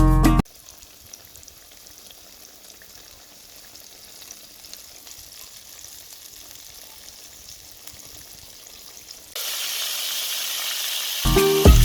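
Food frying in a pan, a faint sizzle that turns into a loud, high hiss for about two seconds near the end.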